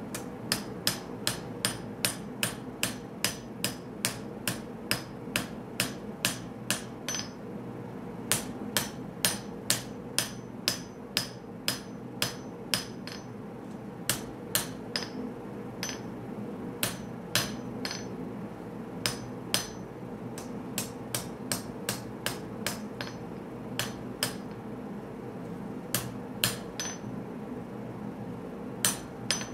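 Hand hammer blows on a hot Damascus steel knife blade (1084 and 15N20) held on an anvil, about two sharp, ringing strikes a second in runs broken by short pauses, as the blade is forged to shape.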